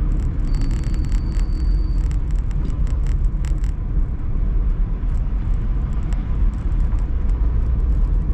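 Steady low rumble of road and engine noise inside a moving car. A few light clicks and a brief thin high tone come in the first two seconds or so.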